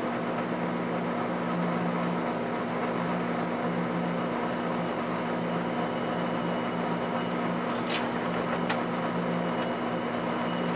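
Steady low machine hum with a few fixed tones, unchanging throughout. Near the end a couple of short clicks as the store's glass door is pushed open.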